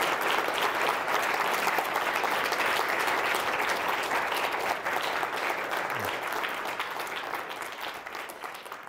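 Audience applauding after a talk, a dense steady clapping that dies away near the end.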